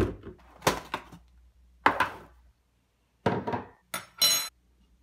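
Kitchen handling sounds: a series of separate knocks and clatters as a plastic bottle and a ceramic mug are set down on a wooden worktop and a metal spoon is taken from a cutlery drawer, ending about four seconds in with a ringing clink of metal cutlery.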